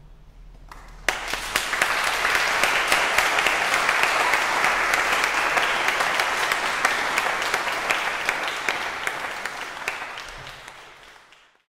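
Audience applauding: the clapping starts suddenly about a second in and fades out near the end.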